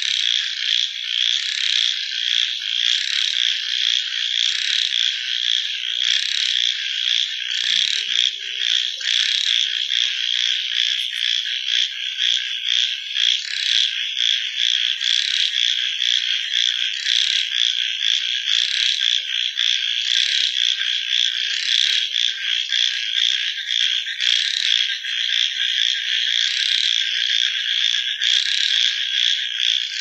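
Dense night chorus of many frogs calling at once: a continuous, high-pitched wall of rapidly pulsing calls, with a few faint lower croaks now and then.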